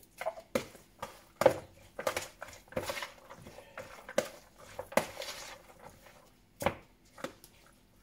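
A spoon knocking and scraping against the sides of a large mixing bowl as a salad dressed with mayonnaise is stirred. The clinks come irregularly, several a second at times.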